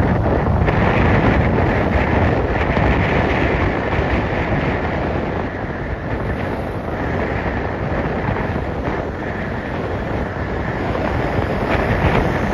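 Wind rushing over the microphone of a moving vehicle, a steady loud roar with road noise from the vehicle underneath.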